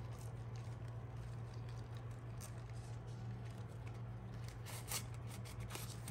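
Faint rustling and a few soft clicks as a sheer mesh drawstring bag is pulled open and a stack of die-cut paper stickers is slid out of it, over a steady low hum.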